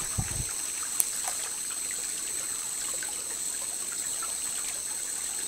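Small shallow stream trickling over stones, with a brief low thump just after the start and a single sharp click about a second in.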